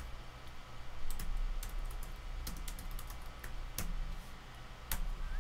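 Typing on a computer keyboard: a run of irregular key clicks as a line of code is entered.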